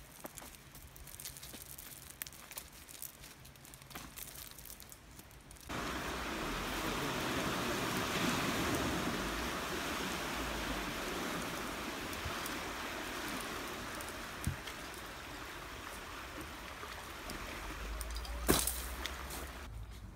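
Light clicks and rustles of a climbing rope being handled, then, about six seconds in, a sudden switch to a steady, even rushing noise that carries on until just before the end, with one sharp knock near the end.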